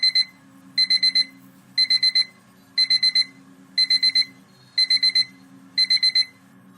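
Electronic alarm beeping in quick groups of four high beeps, the groups repeating about once a second, over a low steady hum.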